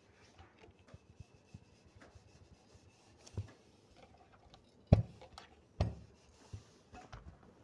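Faint rubbing of an electric dry iron and fingers sliding over cotton fabric on a pressing table, with a few soft knocks, the loudest about five seconds in.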